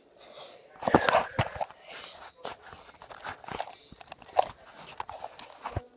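Handling noise on a phone's microphone as it is grabbed and moved about: a run of knocks, rubs and rustles, with a few sharp thumps, the loudest about a second in.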